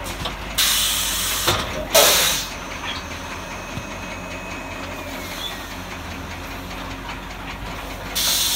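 Silage packing machines running with a steady hum, broken by loud bursts of hiss: two close together early on and one near the end.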